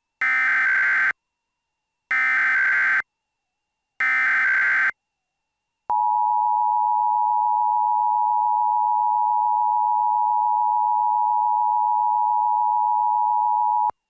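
Emergency Alert System header: three short bursts of SAME digital data tones, about a second each and a second apart, then the EAS two-tone attention signal held steady for about eight seconds before cutting off. Together they open a tsunami warning alert.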